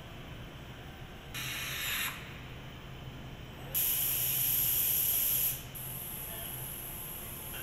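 Bursts of compressed-air hiss from pneumatic assembly equipment over a steady low machinery hum: a short burst about a second and a half in, then a longer, louder one of nearly two seconds about halfway through.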